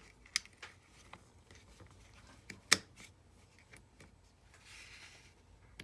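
Small plastic clicks and handling sounds as a USB plug and cable are fitted into a USB hub, with one sharp click about halfway through and a short soft rustle near the end.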